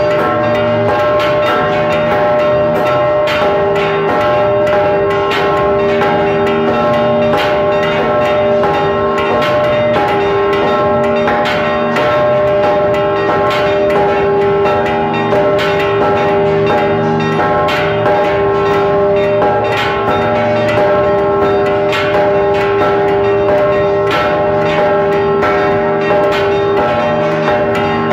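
Church bells rung in a rapid repique: a large bronze bell struck by its rope-pulled clapper, heard at very close range, over other bells sounding together. The strikes come quickly and without a break, and the bells' tones ring on under them.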